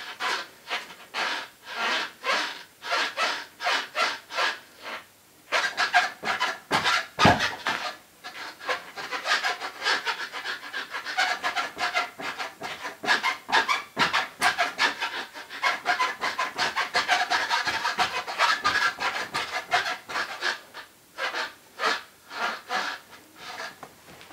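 Landyachtz Switchblade maple longboard deck being flexed by someone bouncing on it: rhythmic rubbing and creaking, about two strokes a second, with a short pause about five seconds in.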